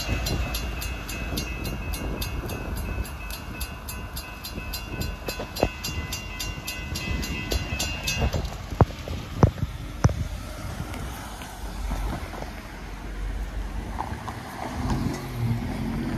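A railroad grade crossing bell rings about three times a second while the last tank cars of a freight train roll past, with a few sharp wheel clacks on the rails. The bell stops suddenly about eight seconds in, and near the end a car drives over the crossing.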